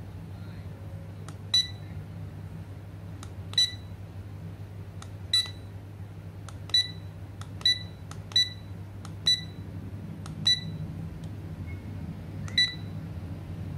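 Wooden cube LED alarm clock's buttons clicking, each press answered by a short high beep confirming it, nine times at an uneven pace while the alarm time and sound-control setting are stepped through. A low steady hum runs underneath.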